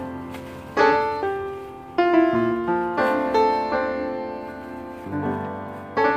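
Background piano music: single notes and chords struck about once a second, each ringing and fading away.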